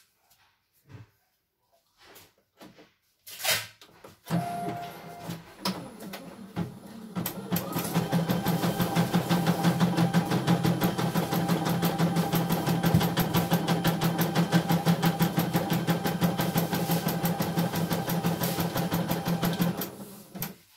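CNY E900 computerized embroidery machine starting up: a few clicks and a short beep, then the needle mechanism runs up to speed and stitches with a fast, steady, even rhythm, stopping just before the end.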